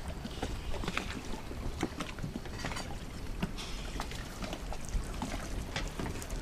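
Water splashing and lapping as a swimmer kicks and strokes at the surface, with many small irregular splashes over a low rumble of wind on the microphone.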